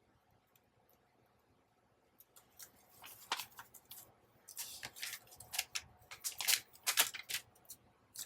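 Scissors snipping through paper: quiet at first, then a run of short, crisp cuts beginning about two seconds in and stopping just before the end.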